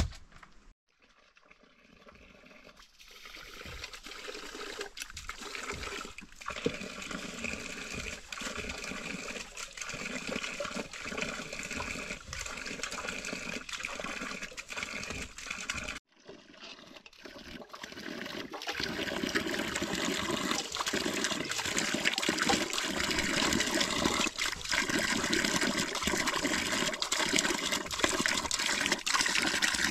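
Water pouring steadily from an open hose pipe and splashing onto the ground, with rice being swished and rinsed in an aluminium pot. The running water fades in after a couple of seconds, breaks off briefly near the middle, and comes back louder.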